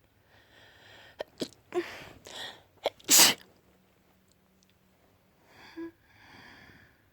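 A person sneezing: hitching, breathy build-up breaths with a few sharp catches lead to one loud sneeze about three seconds in, followed by two softer breaths.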